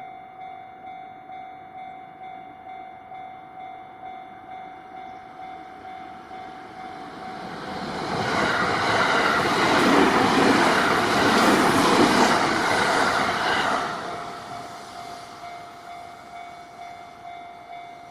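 Level-crossing warning bell ringing in a steady pulse, about two strikes a second, as the 285-series Sunrise sleeper express electric train passes over the crossing. The train's rumble and wheel noise swell about eight seconds in, are loudest for some six seconds, then fade, leaving the bell ringing on.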